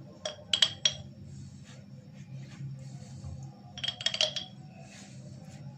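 Glass clinking in two short bursts, about half a second and about four seconds in: an oil brush knocking against a small glass jar of cooking oil as it is dipped for brushing oil onto skewered potatoes.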